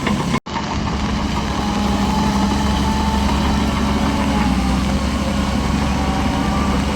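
Heavy diesel engine of earthmoving machinery running steadily with a deep hum, cutting out for an instant about half a second in.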